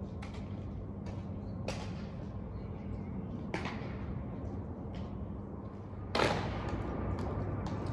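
Open-air background with a steady low hum, broken by a few sharp knocks, then a louder rushing noise that comes in suddenly about six seconds in.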